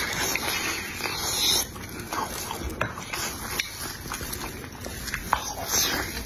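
Close-miked mouth sounds of a man eating a sauce-glazed chicken leg: wet chewing, lip smacking and tearing bites, with a few sharp clicks scattered through.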